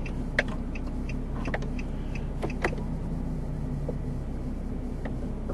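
Vehicle engine idling steadily, with a few scattered light clicks.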